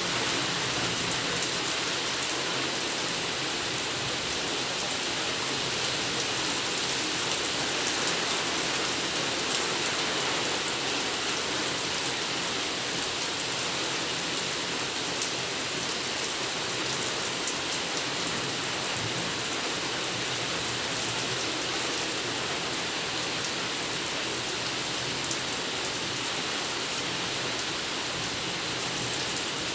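Steady, even rain falling, with fine scattered drop ticks.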